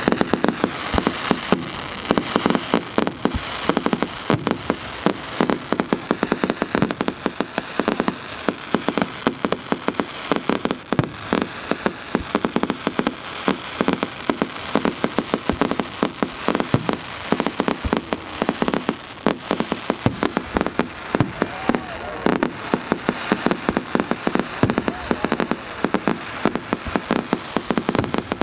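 Fireworks display: a dense, irregular crackle of sharp pops and bangs, many each second.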